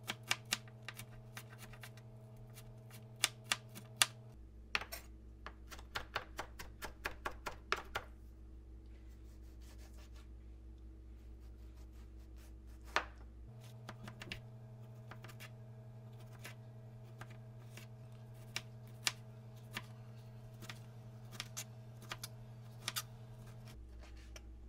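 Kitchen knife chopping on a cutting board: sharp knocks in quick runs through the first eight seconds or so, then fewer and more scattered.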